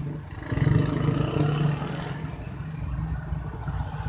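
Motor vehicle engine running, strongest about half a second to two seconds in, with a few brief faint high chirps over it.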